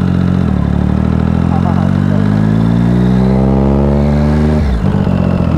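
Triumph Daytona 675's inline-three engine accelerating under load, its pitch rising steadily for about four seconds, then dropping abruptly near the end.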